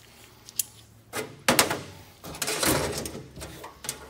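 Parts of a torn-down CP4 high-pressure fuel pump being handled on a metal workbench: a few sharp metal clinks and knocks, the loudest about a second and a half in, with scraping and rustling between them.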